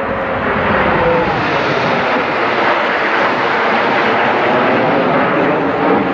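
Canadian Forces Snowbirds formation of CT-114 Tutor jets passing overhead: a steady, loud jet roar.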